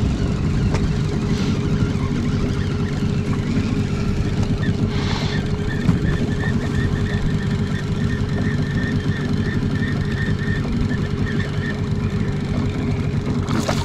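Boat's outboard motor running steadily at low speed, a continuous low hum and rumble.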